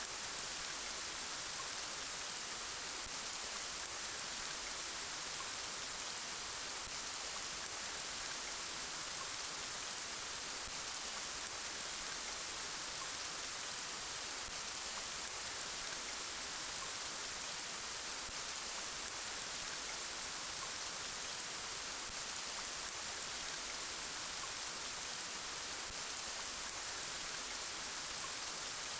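Steady rain falling, an even hiss of many drops with no thunder or breaks.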